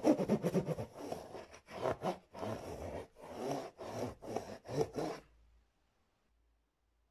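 Scissors scraped across corrugated cardboard in short rasping strokes. The strokes come quickly for the first second, then about two a second, and stop about five seconds in.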